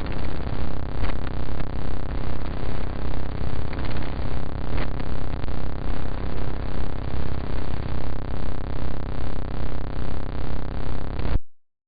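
Sonified image data: the picture's RGB colour channels turned directly into sound, heard as a dense noisy drone of many steady tones. It pulses about three times a second and cuts off suddenly near the end.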